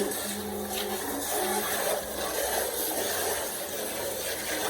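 A small aquarium tank being rinsed and rubbed clean by hand with water: a steady wash of splashing water and rubbing.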